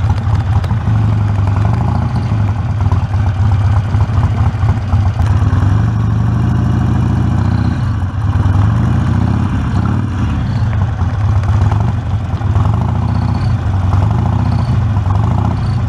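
Harley-Davidson Sportster XL1200C's 1200 cc V-twin running, its speed rising and falling a few times in the second half, with an intermittent chirping sound that is hard to trace to a source.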